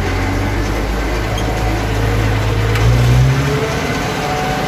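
Tractor engine running under way, heard from inside the cab, with a low steady drone. About three seconds in it briefly gets louder and rises in pitch as the revs pick up.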